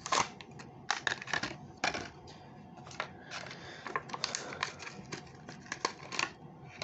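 A Hot Wheels blister pack being opened by hand: irregular crackles, clicks and tearing of the plastic blister and cardboard backing card.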